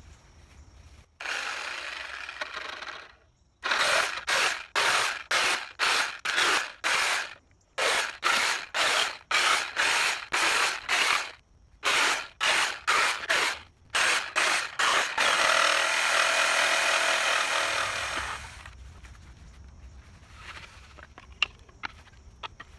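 Corded reciprocating saw cutting through a wooden pallet to free its deck boards, run in a long string of short trigger bursts at about two a second, then held for about three seconds. It stops some four seconds before the end, leaving a few faint clicks of loose boards being handled.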